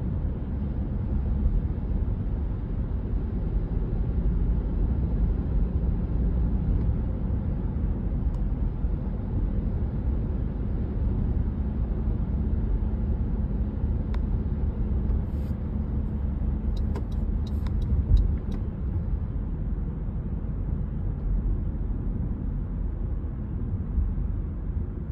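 Car driving, heard from inside the cabin: a steady low engine and road-noise rumble, with a brief cluster of small sharp clicks a little past the middle.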